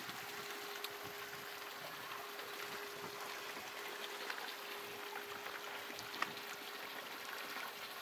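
Shallow stream trickling over rocks: a steady hiss of running water, with a faint steady hum and a few light ticks.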